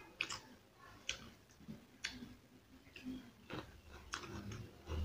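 Close-up chewing and lip smacking while eating pakhala rice and fried rohu fish: sharp, wet mouth clicks roughly once a second over a quiet background. Near the end a low hum of the voice begins.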